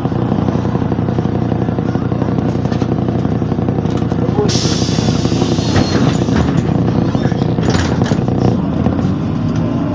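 MAZ 103 city bus idling, heard from inside the cabin, with a steady engine drone. A brief hiss comes in about four and a half seconds in and stops about a second later.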